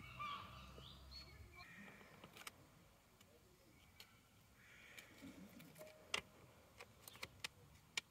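Faint bird chirps during the first second or so, then scattered small sharp clicks and ticks as metal tweezers and a plastic sticker backing sheet are handled, the loudest a little past halfway.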